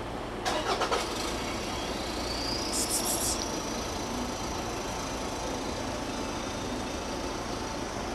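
Steady street traffic hum with a vehicle's high whine that rises in pitch about two seconds in and then holds steady. A quick run of clicks sounds about half a second in.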